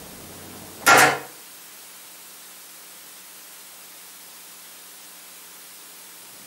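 Quiet room hiss with one short, loud noise about a second in, then a faint steady hum.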